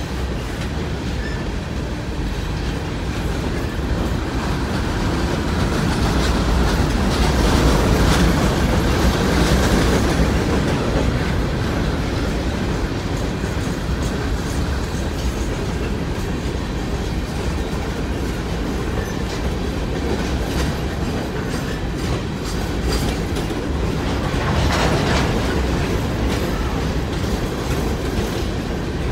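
Open-top hopper cars of a BNSF coal train rolling past: a steady rumble of steel wheels on rail, louder for a few seconds about a quarter of the way in and again near the end.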